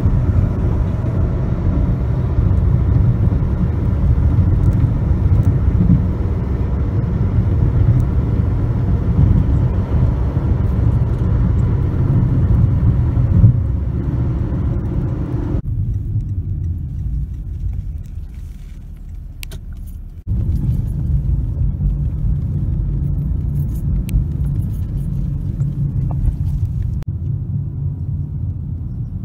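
Car driving at road speed: a steady low rumble of tyre and engine noise heard from inside the car. It drops away for a few seconds past the middle and comes back suddenly.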